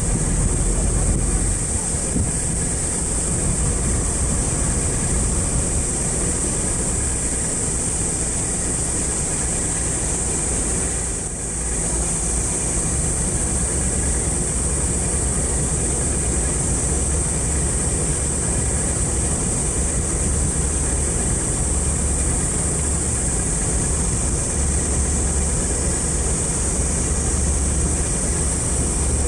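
Small passenger ferry's diesel engine running steadily as the boat comes alongside the pier, the low rumble growing stronger about halfway through, under a steady high-pitched hiss.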